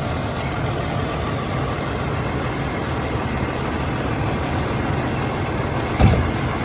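A motor running steadily: a low hum under an even hiss, with a single thump about six seconds in.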